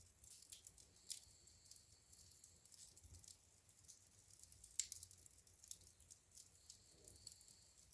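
Wood fire crackling faintly in a fireplace: irregular small pops and snaps, with one sharper pop a little after halfway.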